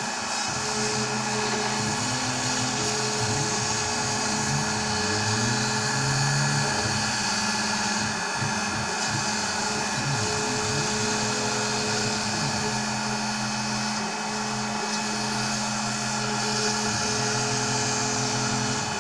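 CNC router spindle running steadily while the machine cuts letters from foam board: a constant whine over a broad hiss, with a lower drone that shifts in pitch now and then.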